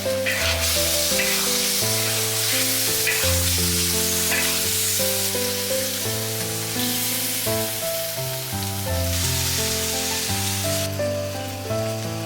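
Food frying in a hot pan, a steady sizzle that eases near the end.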